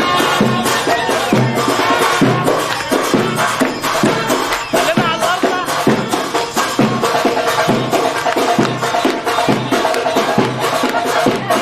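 Folk music with fast, steady hand percussion and a sustained melody line over it.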